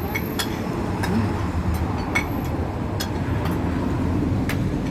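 Restaurant dining-room din: a steady low rumble with several sharp clinks of cutlery and dishes scattered through it.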